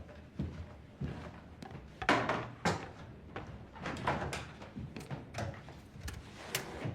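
Irregular knocks, rustles and bumps of belongings being handled and packed up, with drawer or door-like clunks, the loudest about two seconds in.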